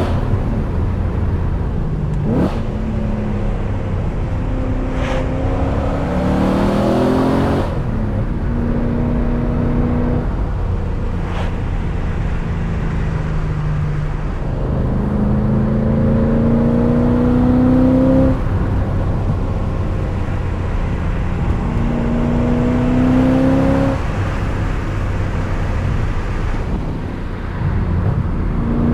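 BMW E39 M5's 4.9-litre V8 (S62) under hard acceleration, its revs climbing several times and falling back at each gear change, with short spells of steady cruising between pulls.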